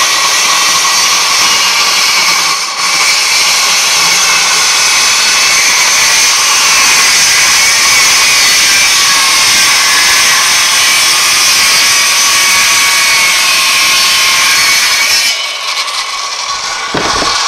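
Handheld circular saw cutting through a thick block of Delrin (acetal plastic), a steady loud whine of the blade in the plastic with a brief dip about three seconds in. The cut ends abruptly near the end.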